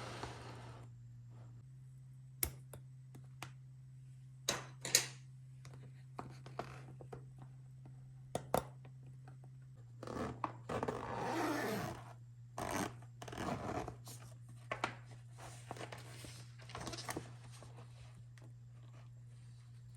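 Toy packaging being unboxed: a few sharp clicks and taps, then stretches of crinkling, rustling and tearing of packaging, over a steady low hum.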